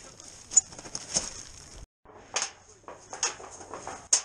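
Handling noise of camping gear: rustling with a few sharp knocks and clanks as a tent stove's metal chimney pipe and stove parts are taken down.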